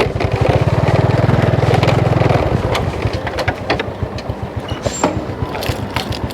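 Motorbike engine running with a fast, even pulse, loud for about the first two and a half seconds and then quieter, with scattered clicks and knocks through the rest.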